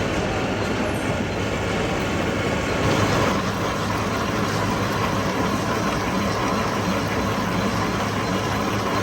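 Heavy metal-turning lathe running steadily, with a constant low hum and a faint steady whine that grows a little stronger about three seconds in.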